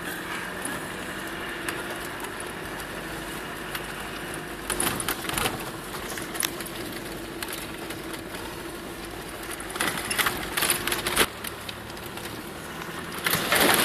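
Land Rover Discovery TDi's turbo-diesel engine running steadily at low speed, heard from inside the cab. Knocks and rattles come in short clusters as the truck bumps over the rough dirt track, about five seconds in, around ten seconds, and near the end.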